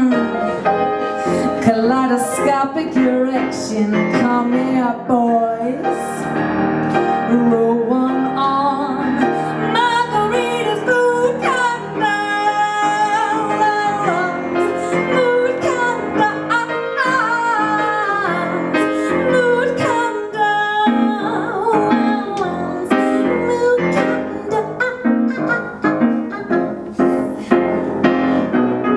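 A woman singing into a hand microphone, accompanied on grand piano.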